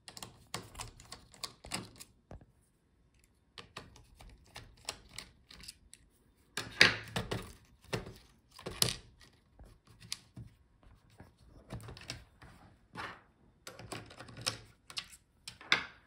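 Small screwdriver working out the battery screws in a laptop's opened plastic base, with irregular light clicks and taps of metal tool and screws against the case, the loudest taps about 7 and 9 seconds in.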